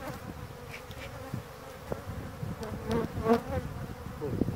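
Honeybees buzzing over an opened hive, a steady hum with individual bees flying close by; their buzz swells and bends in pitch about three seconds in. A light knock comes just before.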